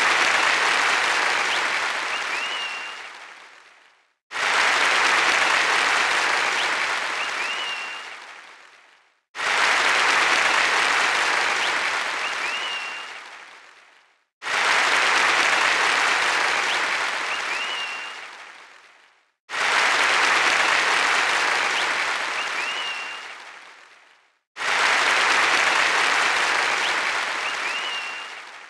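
Crowd applause, the same roughly five-second stretch of clapping repeated six times over as a loop, each time starting abruptly and fading away, with a brief whistle about halfway through each repeat.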